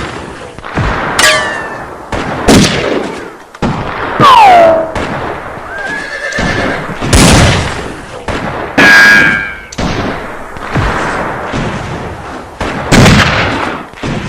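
Classic western-movie shootout sound effects: loud revolver shots every second or two, one followed by a falling ricochet whine, with a horse whinnying amid the gunfire.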